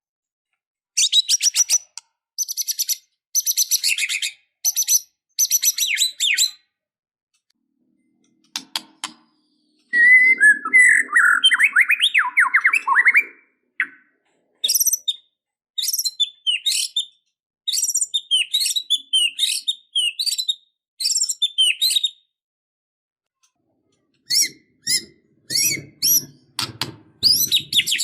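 White-rumped shama (murai batu) singing in rapid varied phrases of high, gliding and trilled notes, broken by short silences, with a lower warbling phrase about ten seconds in.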